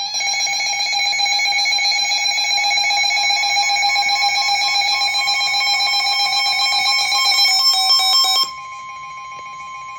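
Emergency Alert System attention signal from a radio receiver: a loud, steady two-tone alarm announcing an incoming warning, here a severe thunderstorm warning. About eight and a half seconds in, the lower tone cuts off and the sound drops to a quieter single tone that keeps sounding.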